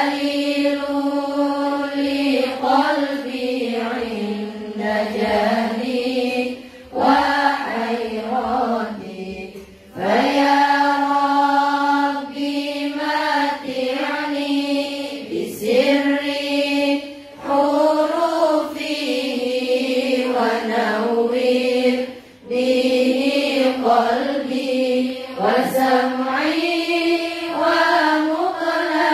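A large group of young women chanting an Arabic sholawat in unison, in long held phrases with brief pauses between them.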